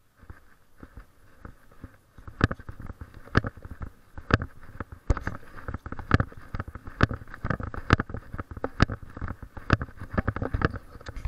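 Footsteps on a concrete sidewalk, landing at an even pace of about one a second. They begin about two seconds in, over a steady rustle.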